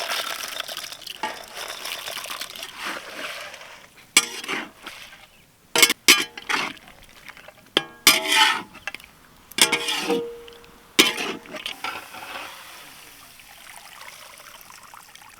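Metal cooking utensils clinking and scraping against a pot while food is stirred. A cluster of sharp clinks, some ringing briefly, comes in the middle, between softer stirring noise.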